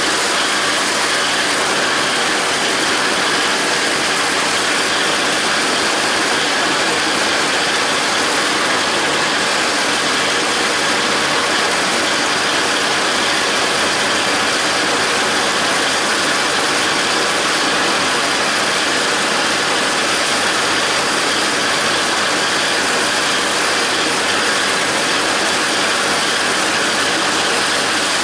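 John Deere 270 disc mower running as it cuts standing grass, its spinning discs and cutterbar gears over the John Deere 5320 tractor's diesel engine running under load. Loud and steady, without change.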